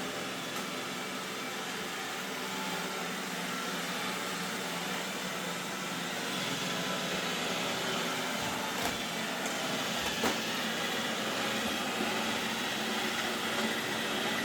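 Roomba robot vacuum running steadily, a little louder about halfway through, with two light knocks soon after.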